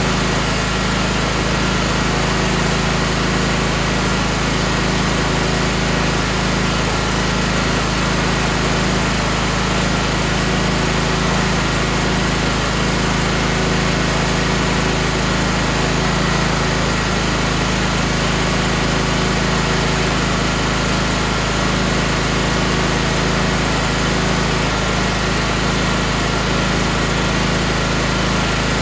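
Tractor engine running at a steady speed, an even drone with no change in pitch or level.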